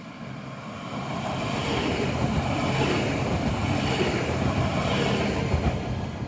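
Regional express train passing through a station platform at speed without stopping. The rush and rumble of wheels on rails swells from about a second in, is loudest as the carriages go by, and begins to fade near the end.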